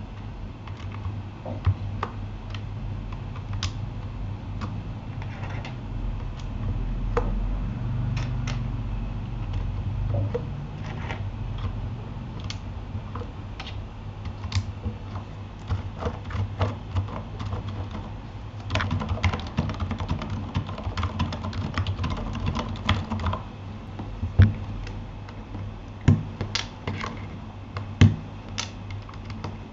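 Typing on a Keychron K8 mechanical keyboard fitted with Gateron Aliaz silent switches: damped keystrokes, scattered at first, then a fast run of typing about two-thirds of the way through, and a few louder single key strikes near the end.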